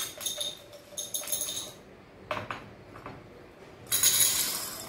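Dried red kidney beans poured from a glass bowl into a drinking glass, clattering and clinking on the glass. A few separate clinks come first, then a longer rattling pour with a glassy ring about four seconds in.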